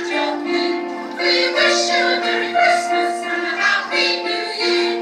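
Music with voices singing together, like a choir, on long held notes.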